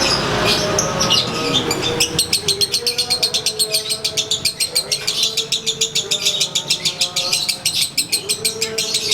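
Lovebird's ngekek: a long, fast, rattling chatter of high clicks at about ten a second, starting about two seconds in and running on without a break.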